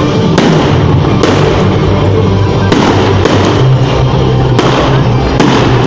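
New Year fireworks going off, several sharp bangs about a second apart, over loud music with a steady bass.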